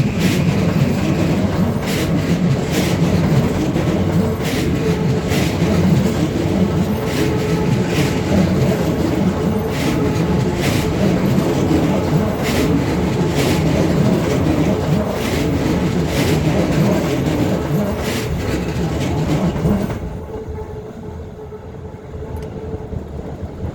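Keikyu train passing at close range over a level crossing: a loud, steady rumble of the cars with a wheel clack about once a second as the wheels cross the rail joints. About twenty seconds in, the sound drops away sharply as the train clears.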